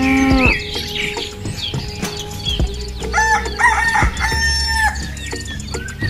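A rooster crowing about three seconds in: one long call that rises, holds and falls, over background music.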